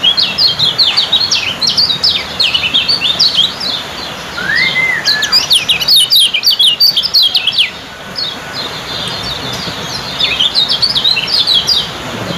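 Kecial kuning (lemon-bellied white-eye) giving its fast 'ciak' chattering song: rapid runs of high, sharp notes, with one lower slurred whistle a third of the way in and a short lull about two-thirds through before the runs start again.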